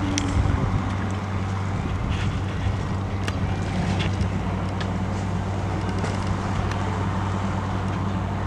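A houseboat's diesel engine running with a steady low hum, with wind on the microphone.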